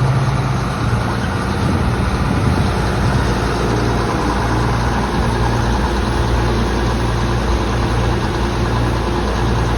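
John Deere 4440 tractor's six-cylinder diesel engine running steadily at idle, a loud low drone that pulses slightly.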